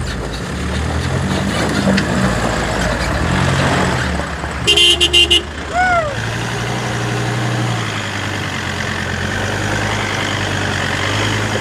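Off-road 4x4 engine running under load, its pitch stepping up about six seconds in. About halfway through, a vehicle horn sounds in a few short toots, followed by a brief falling whoop.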